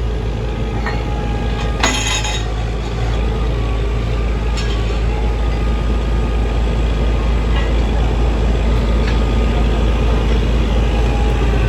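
A heavy engine or machine running steadily with a deep, loud rumble. A single sharp knock sounds about two seconds in.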